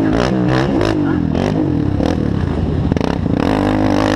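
Racing ATV engine revving hard, its pitch climbing and dropping again and again as the throttle is worked over the bumps. Short sharp clatters come through it, with a cluster of them about three seconds in.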